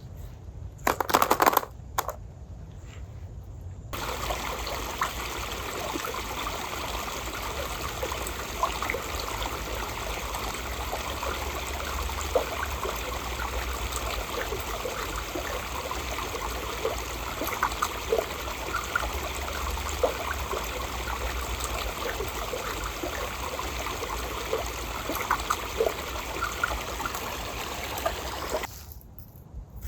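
Water trickling and bubbling steadily, with many small droplet-like plinks; it starts and stops abruptly. A short loud noise comes about a second in.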